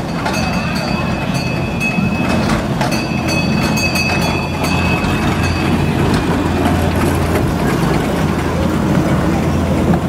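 Miniature ride-on amusement train running on narrow-gauge track: a steady mechanical rumble with a low hum as it rolls past. A high-pitched squeal comes and goes during the first half.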